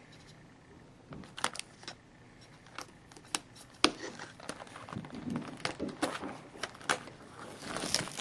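Crinkling and clicking of plastic wrap and cardboard as a sealed box of trading cards is handled and opened, sparse at first and busier from about halfway through.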